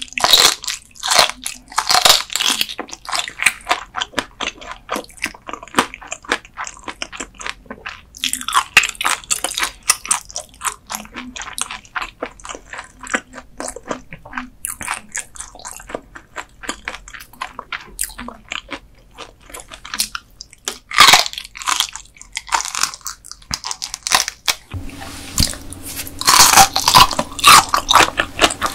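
Close-miked crunching and chewing of whole raw dotted gizzard shad (jeoneo) sashimi eaten bones and all: crisp, crackly bites come in bursts, with quieter chewing between them. Near the end a steady rushing noise sets in under the crunching.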